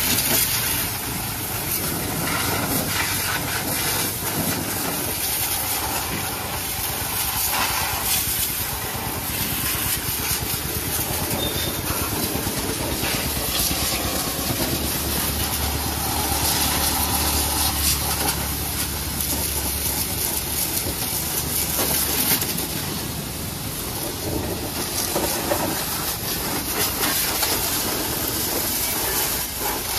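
High-pressure washer jet hissing steadily as it blasts mud off a tractor's rear tyre and rotary tiller, the spray loudening and easing as it strikes metal and tyre.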